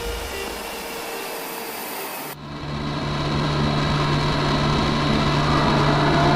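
Jet aircraft engine noise: a steady, broad rush that cuts off abruptly about two seconds in, then a steady low drone that grows slowly louder.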